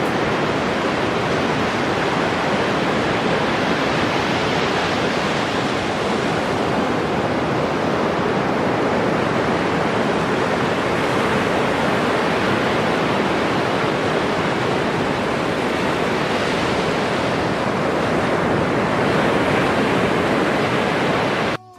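Ocean surf breaking on a sandy beach, a steady rushing wash with slow swells in loudness and some wind on the microphone. It cuts off suddenly just before the end.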